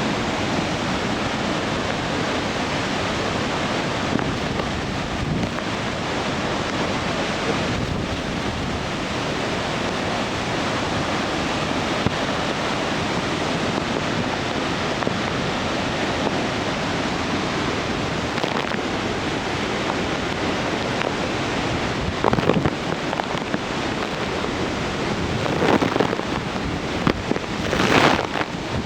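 The Nunobiki Ondaki waterfall pouring heavily, swollen with typhoon rain: a steady, loud rush of falling water. In the last few seconds, gusts of wind buffet the microphone.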